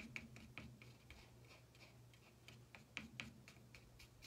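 Faint, irregular light ticks and taps of a stir stick mixing chalk paste, several in the first second, a lull, then a few more near the end.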